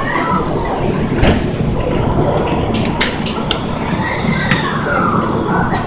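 Busy railway platform as a crowd of passengers boards a train: a steady hum from the standing train under shuffling, scattered knocks and clicks, and a few voices.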